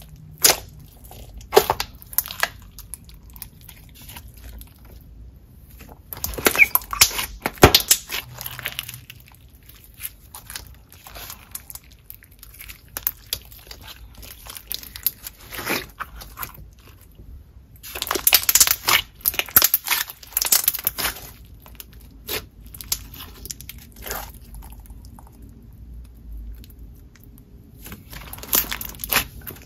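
Thick clear Elmer's Gue slime packed with fishbowl and bingsu beads being squeezed and pressed by hand, giving crunching and clicking in several bursts separated by quieter handling.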